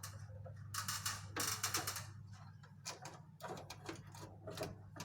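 Irregular clicks, knocks and scraping of plastic parts being handled and fitted back onto an air conditioner unit, over a steady low hum.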